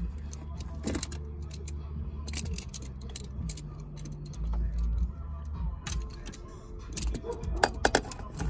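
Irregular metallic clicks and light clattering of a hand tool and parts being handled in a car's engine bay, in small clusters, over a low rumble.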